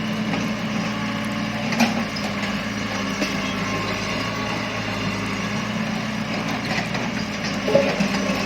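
Heavy excavator engine running steadily at a low, even pitch, with two short knocks, one about two seconds in and one near the end.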